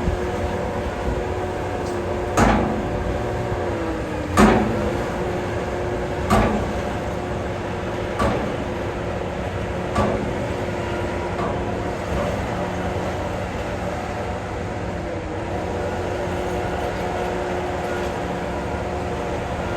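Heavy diesel earthmoving machinery engine running steadily, with six loud metallic clanks about two seconds apart that grow fainter, the engine note dipping briefly with the heaviest one.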